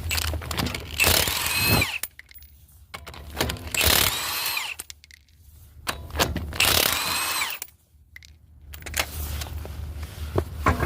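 Impact wrench run in three bursts of about a second each, its pitch rising and then falling in each, working the lug nuts of a car wheel during a flat-tire change.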